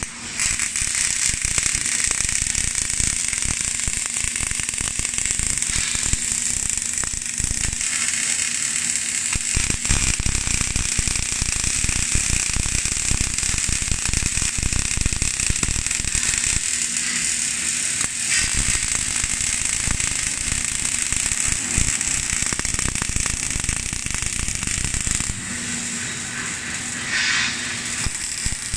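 Robotic arc welding of steel scaffolding planks: the welding arcs crackle and sizzle steadily over a steady hum. The crackle eases for a few seconds near the end, then picks up again.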